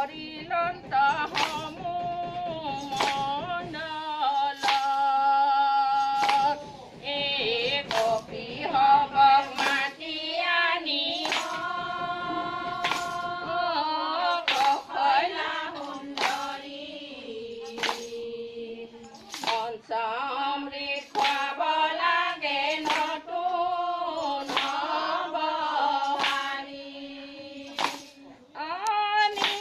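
Group of women singing an Assamese devotional naam together, the melody held in long sliding notes, with hand claps keeping time about once a second.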